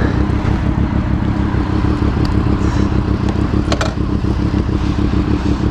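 Inline-four sport bike engine idling steadily at an even pitch, with a short click about four seconds in.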